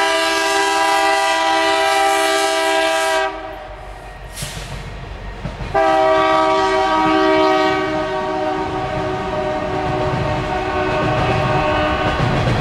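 BNSF freight locomotive's air horn sounding two long blasts. The first lasts about three seconds, the second starts about six seconds in and slowly weakens, over the low rumble of a coal train's hopper cars rolling past.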